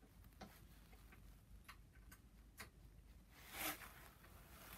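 Near silence with a few faint, irregular clicks and one short rustle about three and a half seconds in: handling noise, with the camera held against clothing.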